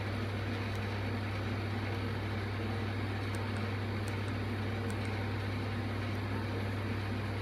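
A steady low hum under a constant hiss, with a few faint high ticks; no ringtone melody.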